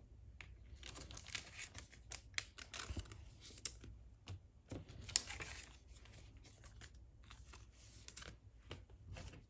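Trading cards being handled and sorted by hand on a wooden table: faint, scattered flicks, slides and soft taps of card stock, with light crinkling of a foil pack wrapper.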